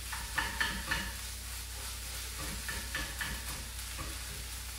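Cauliflower rice with eggs and cheese frying in a pan: a steady sizzle, with repeated scrapes of a spatula stirring it against the pan.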